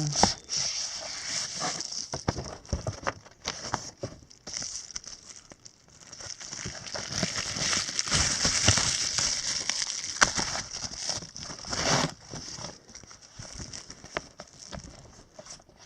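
A package being unwrapped by hand: wrapping crinkling and rustling, with scattered clicks and taps, busiest in a long stretch of steady crinkling from about seven to twelve seconds in.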